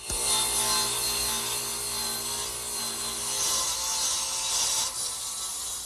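Radial arm saw starting up suddenly and cutting an angled cut across a wooden side panel: a steady motor hum under dense sawing noise, both tapering off near the end.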